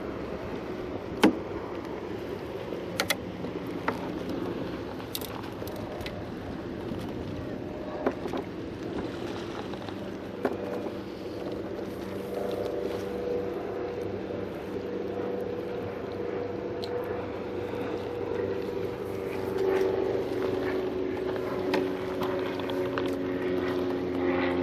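Steady hum of a boat engine across the water, growing louder and shifting in pitch near the end, with a few sharp knocks and clicks of fishing gear being handled on the kayak.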